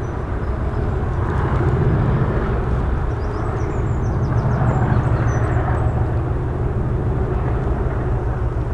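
Steady low drone of distant engine noise with a hiss over it, and a few faint high chirps midway.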